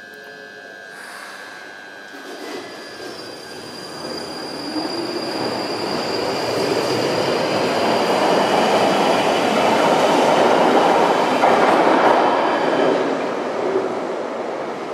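London Underground 1995 Stock tube train pulling out of the platform. Its running noise builds to a loud rumble with a thin high whine and wheel squeal, then eases as the train draws away into the tunnel. A steady high tone sounds for the first couple of seconds.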